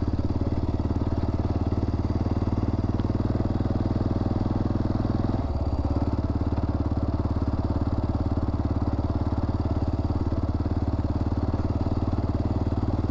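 Honda XR650R single-cylinder four-stroke dirt bike engine running steadily as the bike is ridden. The engine note drops slightly about five seconds in.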